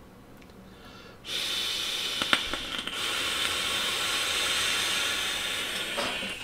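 A long draw on a rebuildable dripping atomizer with dual Clapton coils, fired at 90 watts on a Volcano Lavabox mod. The firing coils and the air pulled through the deck make a steady hiss that starts about a second in and lasts about five seconds, with one sharp click early in the draw.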